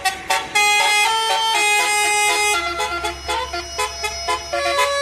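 Multi-tone 'telolet' musical air horn of a tourist bus playing a tune: a run of held notes that step up and down in pitch, with short breaks between them.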